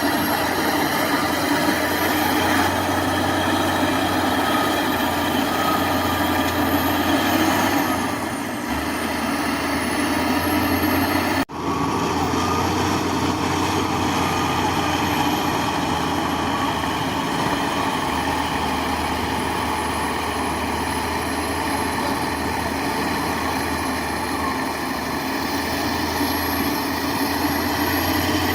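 Heavy machinery engine running steadily, with a sudden brief break in the sound about a third of the way in.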